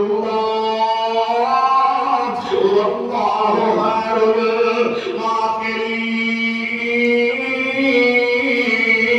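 A man's voice chanting a Quranic verse in slow melodic recitation, holding long notes that glide from one pitch to the next.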